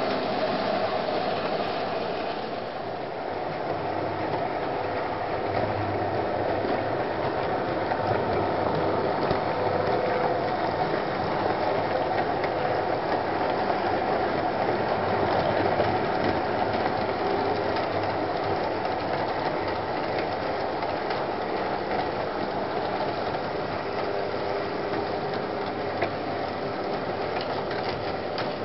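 Model railway locomotives and their wagons running along the track: a steady mechanical whir of small electric motors and rolling wheels.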